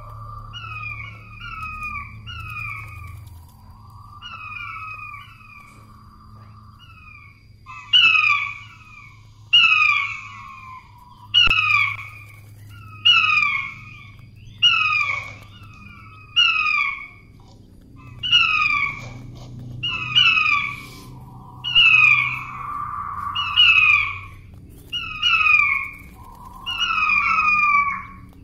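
Puyuh batu quail giving its lure call: quick series of short falling notes, soft for the first several seconds, then loud groups of calls coming about every one and a half seconds.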